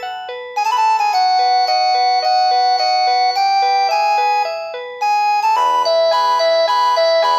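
Mid-2000s mobile phone playing polyphonic electronic ringtone melodies through its small speaker. One bell-like tune plays and dies away about five seconds in, and a different tune starts half a second later.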